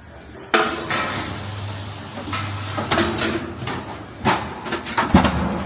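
Insulation-pipe-making machine running: a sudden start about half a second in, a steady low hum, then several clanks and knocks as it works.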